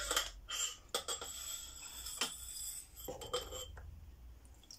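Damper cartridge being slid out of an upside-down motorcycle fork tube: metal scraping and several sharp metallic clinks as the parts knock together.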